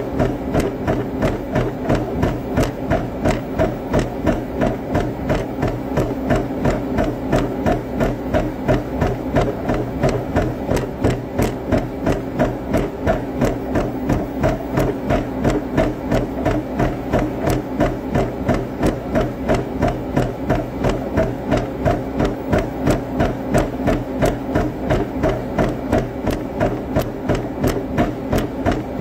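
A speed bag being punched in a fast, even rhythm, about two to three hits a second, each hit a sharp thump with the ring of the wooden room behind it.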